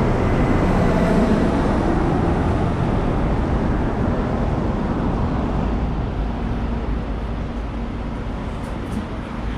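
Steady low rumble of passing motor traffic on a city street, slowly fading.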